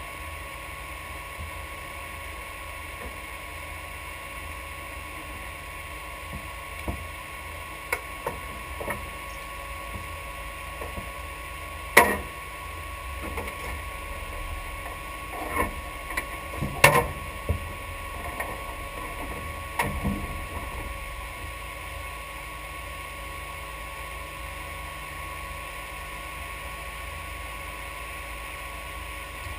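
Scattered knocks, clicks and clunks as the driver unbuckles a racing harness and climbs out of the car through its roll cage, the loudest about twelve and seventeen seconds in, over a steady low hum.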